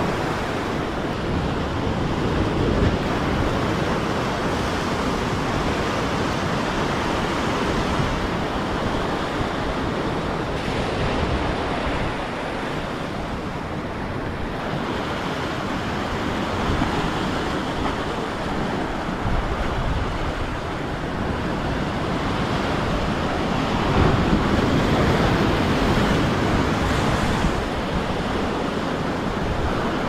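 Ocean surf breaking and washing over the rock ledges, a steady rush of churning water that swells a little louder late on.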